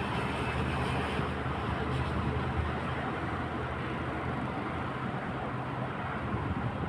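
Steady outdoor background noise: a low rumble under an even hiss, without distinct events.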